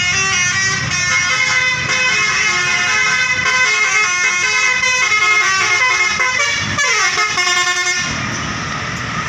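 Bus telolet horn, a multi-tone air horn, playing a quick melody of stepped notes, with a falling glide near the end. It cuts off suddenly about eight seconds in.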